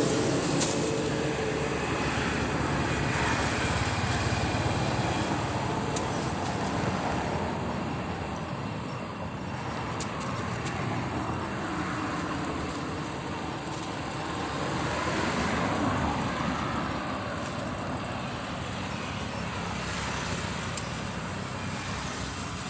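Steady outdoor background noise with a low rumble, and no distinct sound from the monkey.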